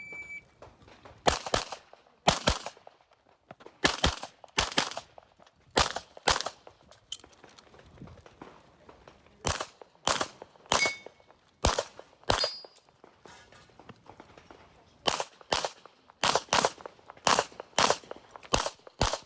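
Handgun shots in an IPSC stage, about twenty of them, mostly fired in quick pairs with short pauses between groups and a longer pause about two-thirds of the way through. A short high beep sounds just before the first shot.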